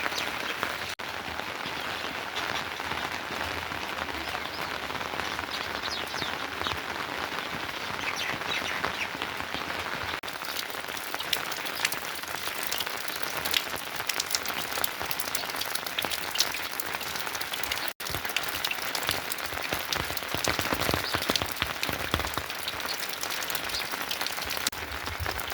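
Steady rain falling, with many distinct drop hits, broken by two very brief dropouts about one second and eighteen seconds in.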